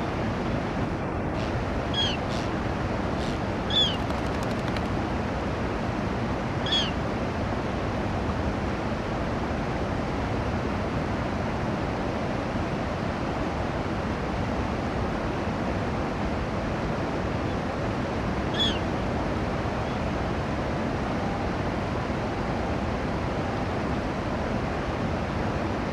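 A gull giving four short, high calls: two close together about two and four seconds in, one near seven seconds and a last one near nineteen seconds. Steady background noise runs underneath.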